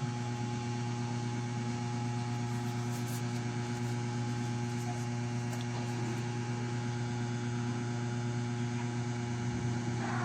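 Steady electrical hum, a low buzz with a faint hiss over it, holding level throughout with no other sound standing out.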